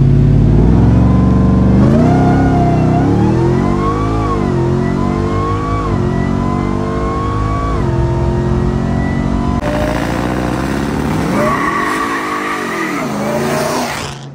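Supercharged 6.2-litre V8 of a Ram TRX at full throttle from a standstill, its pitch climbing and dropping back at each upshift as it pulls hard, heard from inside the cab. After a cut, the engine is revved sharply up and down a few times, then fades out.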